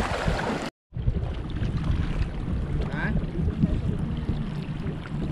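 Shallow seawater sloshing and splashing, with wind buffeting the microphone. The sound cuts out completely for a moment just under a second in.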